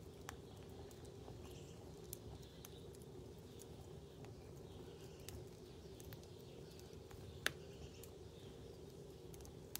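Faint crackling of a wood fire burning in a fire bowl: scattered sharp pops at irregular times, one louder about seven and a half seconds in, over a faint steady low hum.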